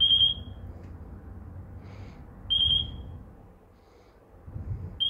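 FrSky Taranis Plus radio transmitter sounding its bind-mode beep: a short high beep every two and a half seconds, three times, while it waits to bind the receiver. Faint low handling bumps lie between the beeps.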